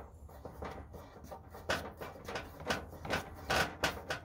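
A string of short scrapes and clicks, closer together near the end, as a small disposable propane cylinder is twisted by hand onto the threaded regulator of a two-burner propane camp stove.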